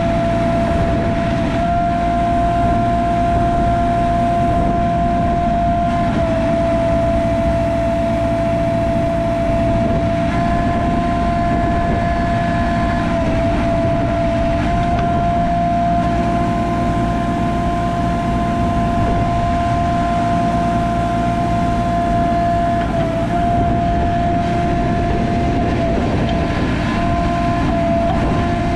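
JCB 3CX backhoe loader's diesel engine running steadily, with a constant high whine over the engine note that dips briefly a few times.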